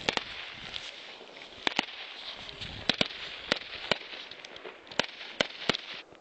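New Year's fireworks going off: about a dozen sharp bangs and cracks at irregular intervals over a constant crackling hiss, stopping suddenly near the end.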